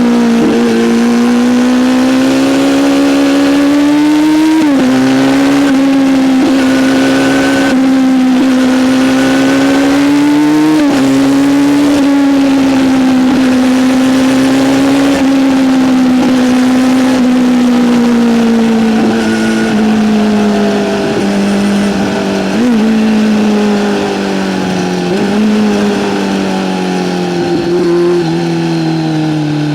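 Kawasaki Z900's inline-four engine through an Arrow aftermarket exhaust, running steadily under way at a fairly constant engine speed. The pitch drifts gently up and down with a few brief flicks, and sinks lower over the last several seconds.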